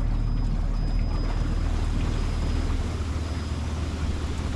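Small boat's motor running at low speed with a steady low hum that shifts in pitch about three seconds in, as the boat pushes into a floating vegetation mat. Wind noise on the microphone rides over it.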